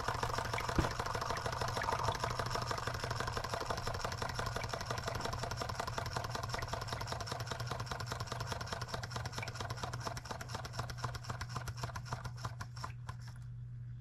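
Model Rider-Ericsson hot air pumping engine running down: the rapid clatter of its linkages and pump slows and stops about thirteen seconds in as the flywheel coasts to a halt. A steady low hum runs under it.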